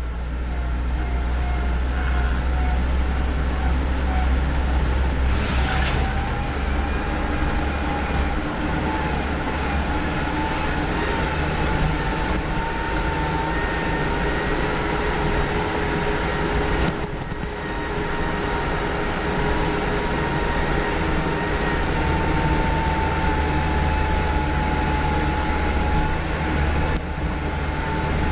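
Steady running noise of a moving vehicle: a loud low rumble of engine and road with a faint whine that slowly wavers in pitch. The noise dips briefly twice.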